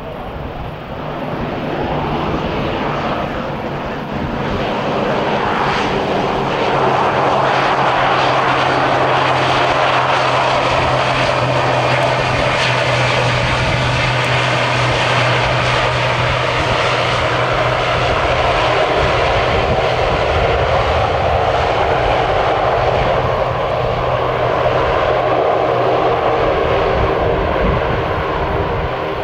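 The ATR 72-600 turboprop's two Pratt & Whitney PW127 engines and six-bladed propellers running as the airliner rolls along the runway after touchdown, with a steady low propeller drone under the engine noise. The sound grows louder over the first few seconds and stays loud as the aircraft passes close by.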